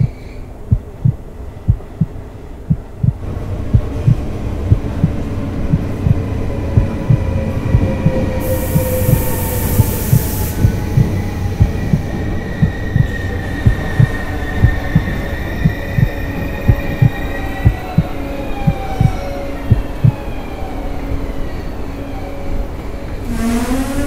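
A steady heartbeat sound effect thumping regularly, with a train pulling in underneath from about three seconds in: wheels and brakes squealing in slowly falling tones, and a burst of hiss around nine to ten seconds in.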